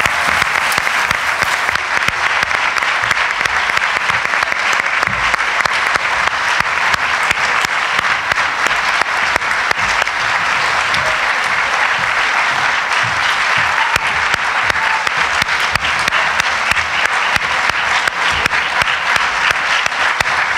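Sustained applause from a roomful of people, many hands clapping at a steady level.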